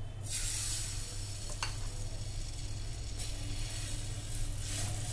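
Semolina and grated-vegetable batter sizzling as it is ladled onto a hot, oiled non-stick pan, in two spells with a single light click between them, over a steady low hum.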